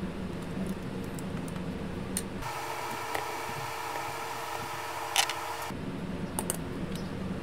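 Small clicks and taps of a vintage calculator's plastic case and circuit boards being handled and pulled apart, over a steady background hum. One sharper click about five seconds in.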